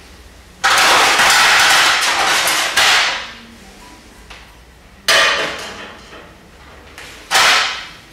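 Metal bowls and plates clattering and being struck. A sudden dense metallic clatter lasts about two seconds and ends in a clang, then come two more single clangs, each ringing out and fading.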